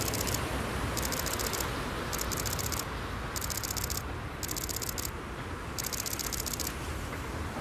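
Distant double-headed steam train, a P36 and an Eu locomotive working hard as they approach: a steady rushing noise. Over it, six short bursts of a high, fast clicking chatter, each under a second and about a second apart.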